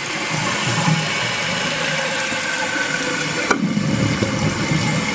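Toilet tank refilling after a flush: a steady rush and hiss of water through the fill valve. A single sharp click about three and a half seconds in.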